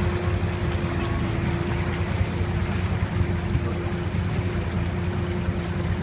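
A motor running steadily: a low rumble with a constant hum over it.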